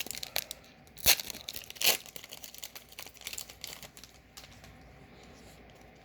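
Booster pack wrapper being torn open and crinkled: sharp crackles of foil plastic, the two loudest about one and two seconds in, then lighter crinkling that dies away.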